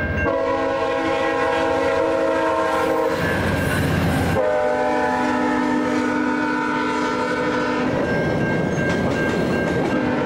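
VIA Rail P42DC locomotive sounding its very dissonant Nathan K5CA-LS five-chime horn as it crosses a level crossing. It gives two long blasts with a loud rush of noise between them as the locomotive goes by. The horn stops about eight seconds in, leaving the clickety-clack of the passenger cars' wheels over the crossing.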